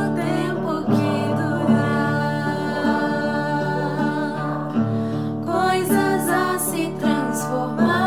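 Women singing a song with acoustic guitar accompaniment.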